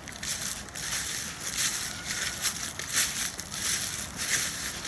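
Footsteps crunching through dry fallen leaves: a series of crisp, uneven crunches, roughly one step every half second to a second.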